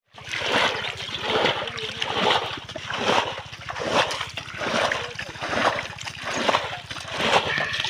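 Splashing and squelching in shallow muddy water, in regular bursts a little under once a second.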